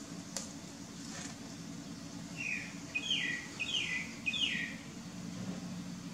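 A bird chirping four times in quick succession, each a short falling note, over a steady low hum.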